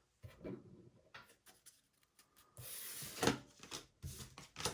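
Trading cards being handled: scattered soft rustles and light clicks as cards are slid off the stack, a short rubbing slide about three seconds in ending in a sharp tap, and another tap near the end.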